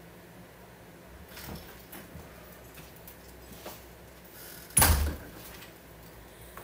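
A door shuts with a single loud thud about five seconds in, after a few soft rustles and knocks.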